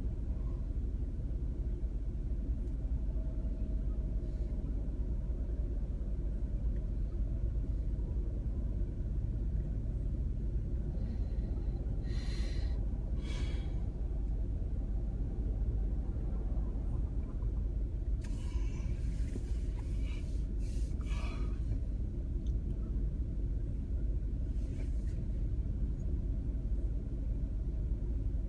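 Steady low road and engine rumble inside a moving car, with a few short hissing sounds about twelve seconds in and again around eighteen to twenty-one seconds in.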